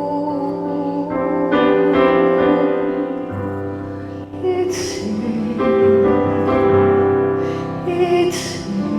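Slow, soft worship music: sustained piano or keyboard chords that change every couple of seconds.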